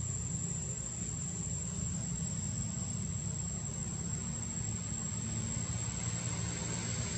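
Insects droning with one steady, unbroken high-pitched tone, over a low steady rumble.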